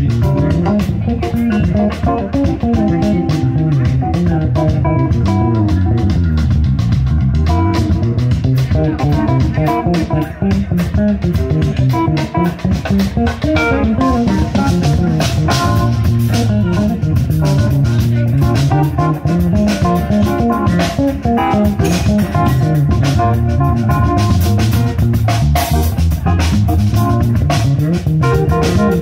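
Live jazz-funk band playing an instrumental groove: a busy electric bass line out front over a drum kit, with guitar and keyboard.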